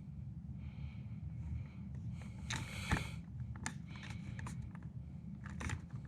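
Handling noise: scattered light clicks and scrapes over a low steady rumble, the loudest click about three seconds in.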